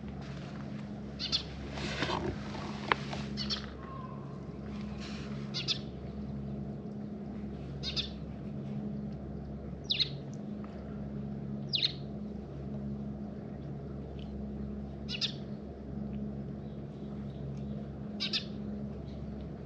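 A bird calling with short, high, falling chirps, one every one to three seconds, over a steady low hum.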